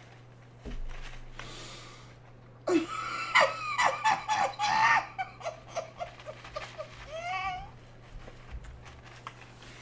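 A man laughing hard off the microphone, in wheezy breaths and bursts of high-pitched giggling, over a steady low hum.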